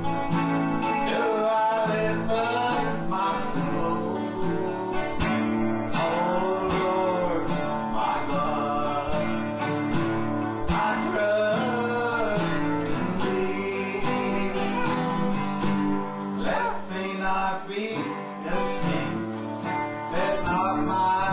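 Country-style gospel music with guitar and a wavering melody line above the chords.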